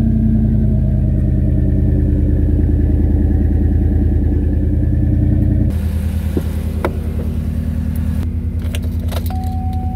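Pickup truck's engine idling steadily just after a cold start, its exhaust running close to dual black tailpipes. The engine gets somewhat quieter a little past halfway through, when it is heard from the open driver's door, and a steady high tone starts near the end.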